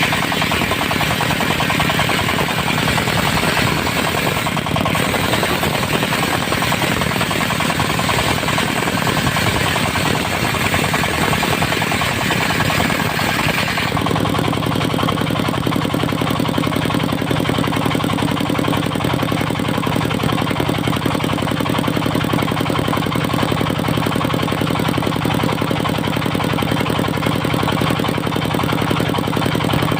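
Diesel-driven circular sawmill blade cutting through dry teak, a harsh noisy saw sound over the knocking diesel engine. About halfway through the cut sound stops suddenly and the engine and blade run on steadily without load.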